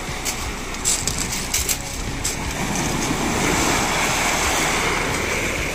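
Sea surf on a pebble beach, with a few sharp clicks in the first couple of seconds, then a wave rushing up the shore and swelling louder about halfway through.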